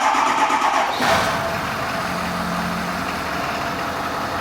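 Ford F-550's 6.7L Power Stroke V8 turbo-diesel running just after start-up. It settles into a steady idle about a second in, with no grinding: the grinding went away once the worn, gear-driven pump was removed from the transmission.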